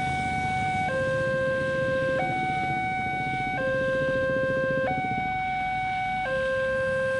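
Railroad level-crossing warning alarm sounding an electronic two-tone signal, switching between a low and a higher tone about every 1.3 seconds: the crossing is closed for an approaching train.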